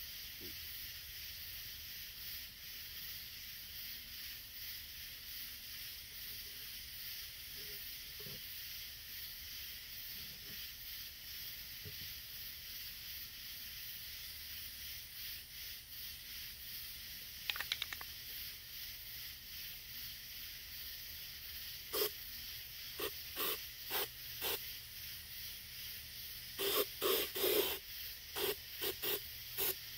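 Aerosol can of Krylon rubberized undercoating paint spraying in short bursts, starting about two-thirds of the way in and coming thick and fast near the end. A brief rattle a little after halfway, over a steady high hiss.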